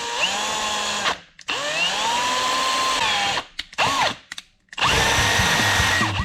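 Electric drill run in several bursts, its motor whine rising in pitch as it spins up each time, boring mounting holes through a plastic front lip.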